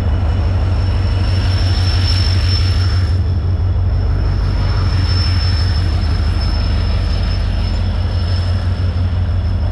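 Kanchanjunga Express passenger train pulling in alongside the platform: a loud, steady low rumble from the locomotive and coaches, with a thin, steady high-pitched wheel squeal over it.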